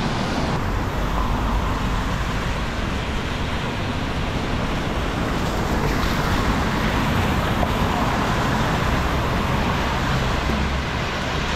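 Heavy rain falling in a steady hiss.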